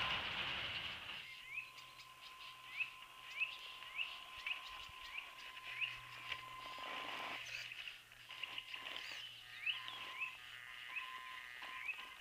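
A bird singing a series of short rising chirps, a little under two a second. The RC crawler's electric motor noise fades out in the first second.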